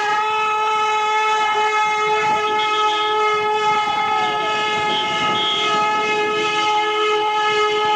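Several car horns held down together in a continuous steady blare.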